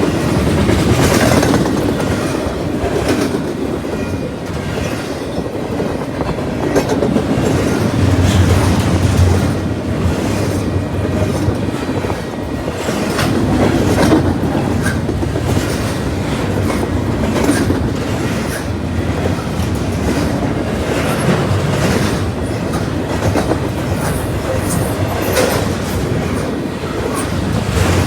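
Train cars rolling past at close range, their wheels clicking steadily over the rail joints.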